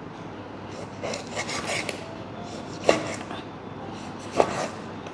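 Kitchen knife slicing through raw beef on a wooden cutting board: soft scraping strokes, with the blade knocking sharply on the board twice, about three seconds in and again near four and a half seconds.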